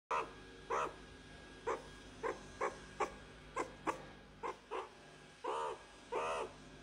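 Meerkat calling: about a dozen short calls at uneven intervals, then two longer, drawn-out calls near the end.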